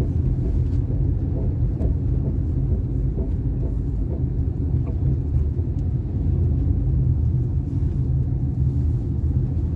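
Steady low rumble of a vehicle travelling along a road, heard from on board.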